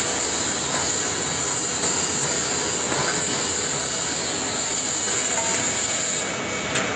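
Wood pellet production line running: the pellet mill and its sawdust feeder make a steady mechanical noise with an even, high hiss.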